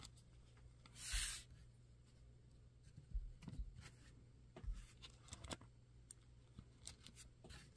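Faint handling sounds of pieces of leather being stacked onto a rivet post: a short rustle about a second in, then scattered light taps and clicks.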